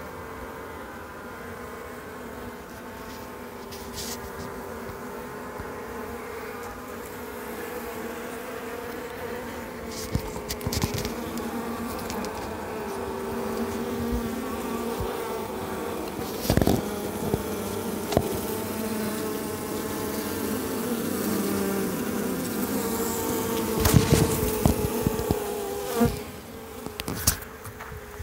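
Many honey bees buzzing at their nest in a tree cavity: a dense hum of overlapping, wavering pitches that grows louder in the second half. A few sharp knocks cut through it, the loudest near the end.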